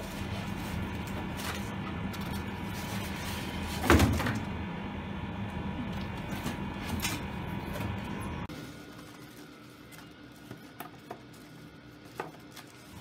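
Styrofoam and cardboard packaging being handled: a foam case slid out of a cardboard carton and its foam lid pulled off, with rubbing and scraping. One loud sharp scrape comes about four seconds in, and a few light knocks come near the end. Under the first two-thirds there is a steady low rumble that cuts off abruptly.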